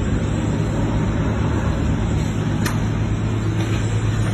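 A vehicle engine running steadily, a constant low hum, with one sharp click about two and a half seconds in.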